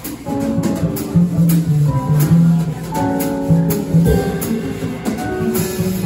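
Live jazz quartet of saxophone, piano, upright bass and drums playing, with held melodic notes over plucked bass and steady cymbal strokes.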